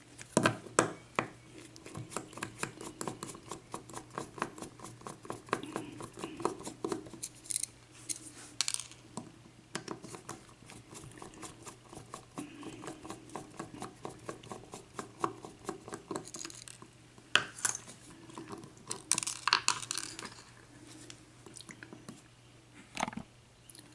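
Pin-tumbler lock being taken apart by hand after picking: many small irregular metal clicks and clinks, with a few louder clusters of clatter.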